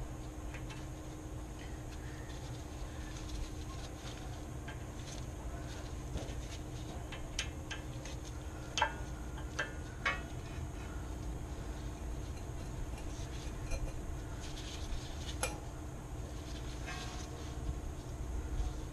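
Scattered light metallic clicks and ticks of a new cotter pin being fitted through a castle nut on a steering tie rod end and worked with tools, over a steady low hum. The clicks come mostly in the middle, with another a little later.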